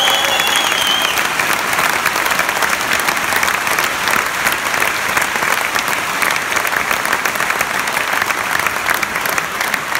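Concert audience applauding steadily in a hall after a song, with a single whistle about a second long at the start.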